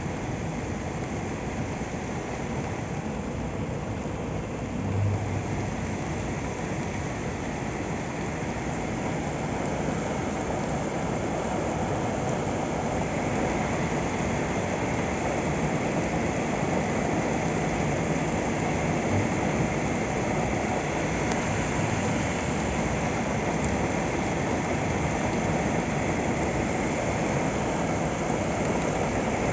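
Heavy rain pouring steadily onto a waterlogged parking lot, growing a little louder about ten seconds in, with a brief low thump about five seconds in.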